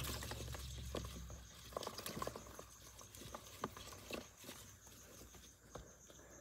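Light scattered clicks and rustling from hatchling black-headed monitors being handled in a plastic tub among their hatched eggshells. A low hum underneath fades out about a second and a half in.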